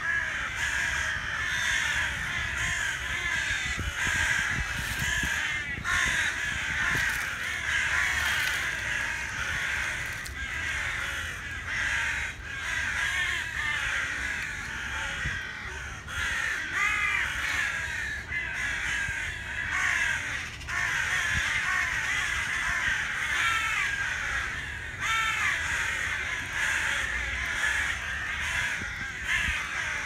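Crows cawing over a dense, steady chatter of bird calls that runs on without a break, with a low rumble underneath.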